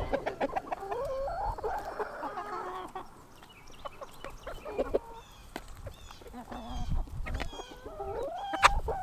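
A flock of chickens clucking and calling, with overlapping short calls and some brief high falling chirps in the middle, and a sharp click near the end.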